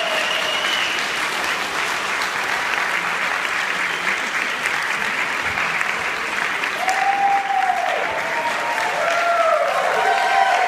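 Audience applauding steadily, with several high voices whooping and calling out from about seven seconds in, growing louder near the end.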